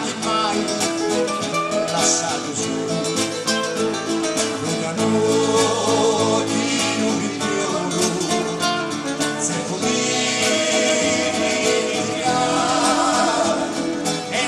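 Several acoustic guitars strumming and picking together in a folk song, with a man singing the lead.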